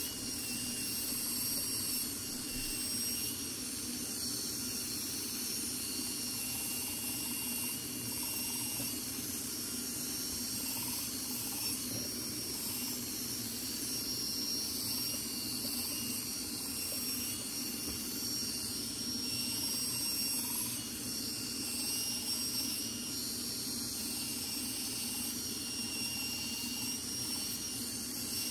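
NSK handheld belt grinder running steadily with a high whine, its 320-grit belt smoothing the fillets of a 17-4 PH stainless steel part.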